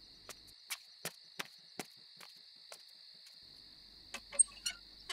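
Crickets chirping in a steady high drone, with a run of light, sharp clicks, about two or three a second, over the first couple of seconds and a few more near the end.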